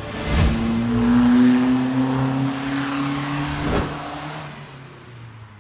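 Logo sting built from a car engine revving sound effect with a rushing whoosh, struck by two sharp hits about half a second in and near four seconds, then fading away.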